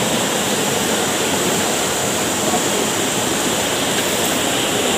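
Fast-flowing river water rushing over rocks, a steady, even rush of running water.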